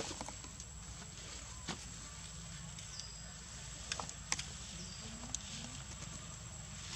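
Quiet forest ambience: a steady high-pitched whine under a low hum, with a few soft clicks and two short, high falling chirps.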